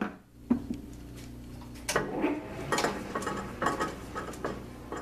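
Metal tools and parts clinking and rattling as they are handled at a lathe, irregular clinks picking up about two seconds in, over a steady low hum.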